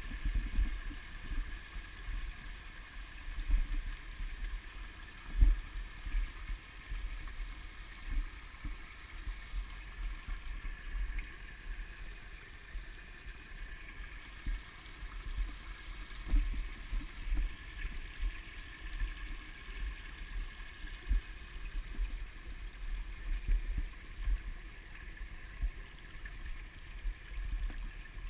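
A shallow rocky creek babbling over small riffles, a steady water sound, with irregular low thumps over it.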